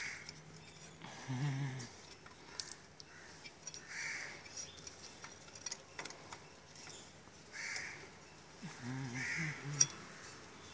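Small metallic clicks as a Bajaj three-wheeler's drum-brake wheel cylinder and piston are worked into the backing plate by hand, one sharp click near the end the loudest. Repeated harsh animal calls sound in the background every couple of seconds.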